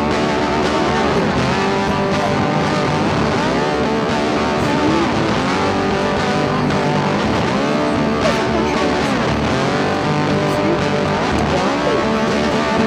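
Background rock music led by electric guitar, with bending guitar notes over a steady, full backing.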